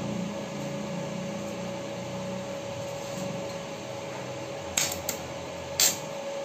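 Stick (arc) welding on a steel frame: the electrode is struck to start the arc, giving three short crackling bursts in the last second and a half, over a steady hum.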